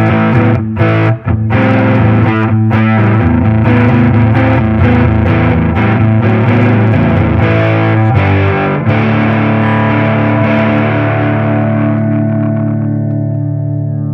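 Electric guitar through a Crow overdrive pedal and a Fender Tonemaster Deluxe Reverb amp, played with a dark, distorted tone: notes and chords for about nine seconds, then one chord left ringing and slowly fading, the amp heard through its speaker.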